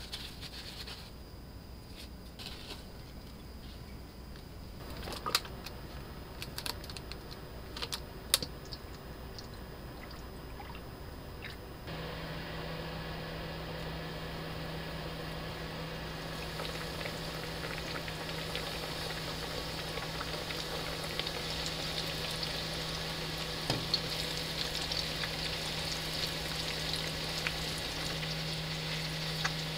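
Eggplant slices being pressed into breadcrumbs, with soft rustling and a few sharp clicks. From about halfway, oil in a frying pan sizzles, growing louder as the breaded eggplant slices fry, over a steady low hum from the electric cooktop.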